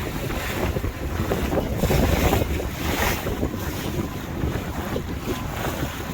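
Wind buffeting the microphone, with water rushing along the hull of a small tour boat under way, coming in uneven gusts.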